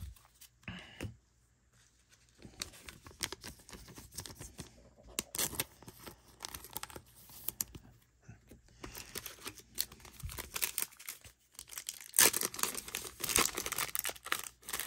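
Baseball cards being handled with light clicks and rustles, then a 1991 Score baseball card pack's wrapper torn open and crinkled. The crinkling is densest and loudest in the last few seconds.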